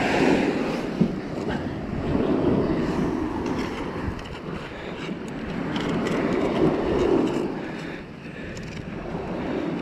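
Surf washing up on a sandy beach, swelling and fading every few seconds, over a steady low rumble of wind on the microphone.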